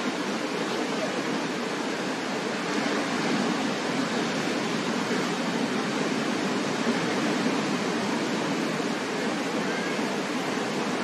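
Ocean surf breaking and washing up a beach: a steady rushing noise that swells slightly now and then.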